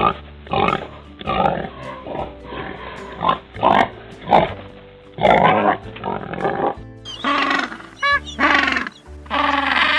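Pig grunting and squealing in a series of short calls, over background music. About seven seconds in it changes to a different animal's higher, wavering calls.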